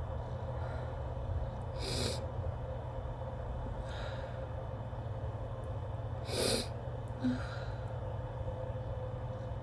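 A person's short, sharp in-breaths and sniffs, about two seconds in, faintly near four seconds, loudest a little past six seconds and once more soon after, as a tickly nose builds toward a sneeze. A steady low hum runs underneath.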